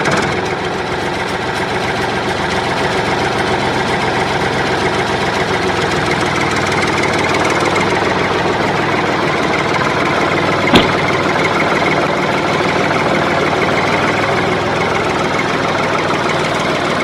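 Tractor engine idling steadily with a knocking beat, and one sharp click about eleven seconds in.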